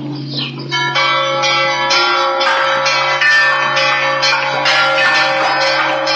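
Church bells ringing a quick peal of several bells at different pitches, starting about a second in.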